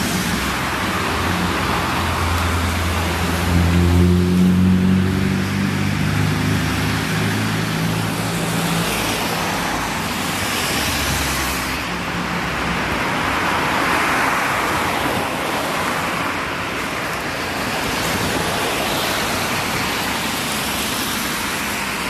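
Street traffic on rain-wet asphalt: tyres hissing past, with a low steady hum for roughly the first eight seconds that then fades.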